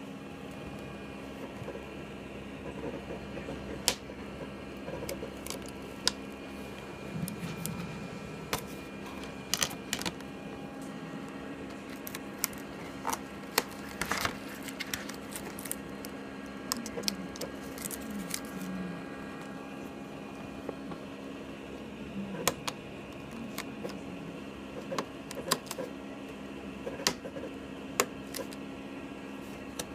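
Irregular clicks, taps and crackles of a sheet of cut vinyl being handled, lifted and worked with a pointed weeding tool, over a steady hum.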